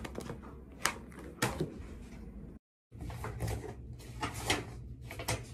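Paper rustles and light taps of a softcover piano book being handled, its pages turned and the book set against the piano's music stand: a string of short sharp sounds, with a moment of dead silence about halfway.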